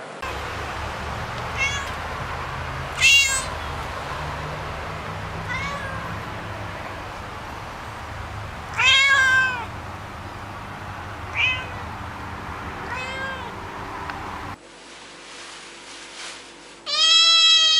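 Domestic cat meowing: six short meows a second or two apart over a steady background hum, the second and fourth the loudest. Near the end, after a cut, another loud, drawn-out meow.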